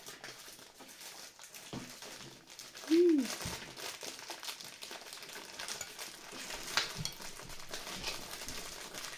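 Candy wrappers crinkling and rustling as they are handled, with a short sound of a voice about three seconds in.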